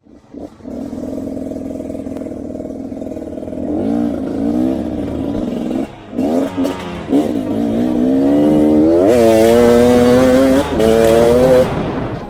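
Off-road motorcycle engine running, then revved several times, each rev rising in pitch, getting louder in the second half.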